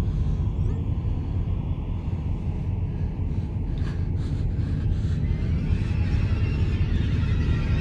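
Low, steady rumbling drone of a horror film's sound design, with a few faint clicks midway and a higher, airy layer swelling in near the end.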